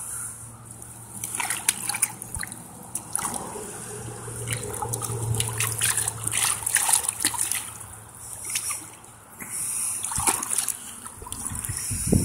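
A shoe stepping into shallow pond water, with irregular splashing and sloshing and many small sharp splashes.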